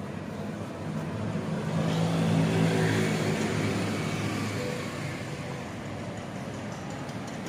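A motor vehicle passing along the street, its engine growing louder to a peak about two and a half seconds in and then fading, over a steady hum of city traffic.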